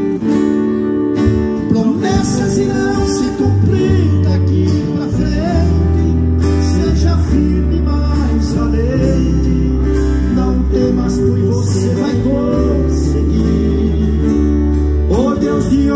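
Live acoustic band playing a gospel song: three acoustic guitars strummed over an electric bass, with the bass line coming in strongly a few seconds in.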